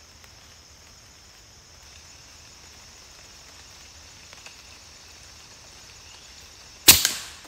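A single shot from a Daystate Wolverine R PCP air rifle near the end: one sharp crack that dies away within about half a second. It is the shot that hits the squirrel.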